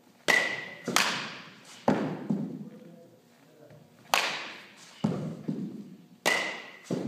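A baseball bat hitting pitched balls three times, each sharp crack followed by thuds of the ball striking and bouncing, echoing in a gym.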